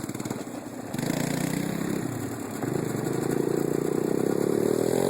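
ATV engine running, picking up about a second in and again midway, with its pitch rising toward the end as it accelerates.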